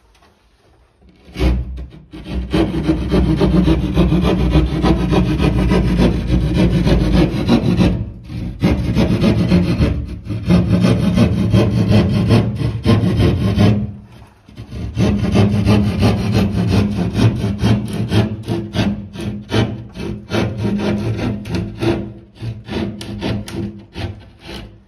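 Sawing: a saw working through material in long runs of strokes, broken by short pauses.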